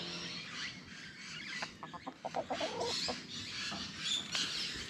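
Domestic hen clucking quietly as she feeds on scattered seed, a quick run of short clucks about two seconds in.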